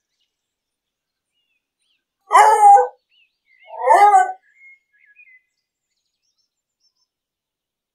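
English beagle barking twice, about a second apart, each bark a short call that bends in pitch.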